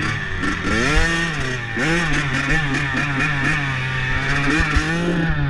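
Motorcycle engine revving up and down repeatedly, its pitch rising and falling in quick swells.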